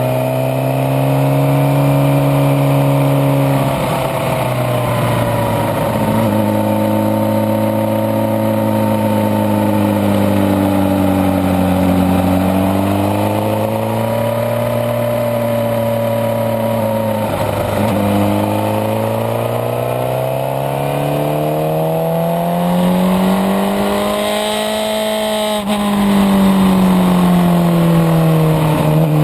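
Suzuki GSX-R sport bike's inline-four engine pulling in third gear. Its note rises and falls as the throttle opens and closes through the bends, with a long climb that cuts off sharply near the end. Wind rush runs underneath.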